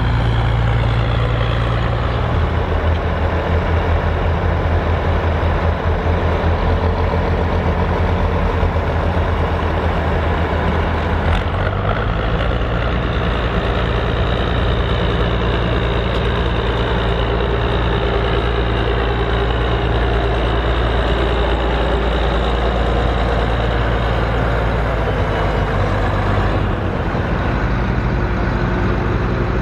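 Large Case IH Magnum farm tractors' diesel engines running steadily. The engine note changes abruptly about a third of the way in and again near the end, as the sound switches from one tractor to another.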